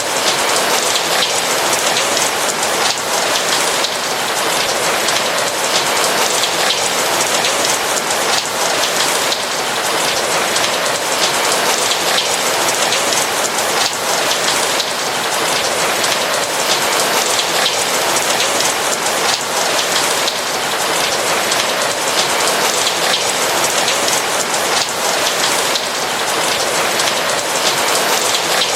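Steady rain falling, a dense even hiss of many raindrops with fine patter on a roof.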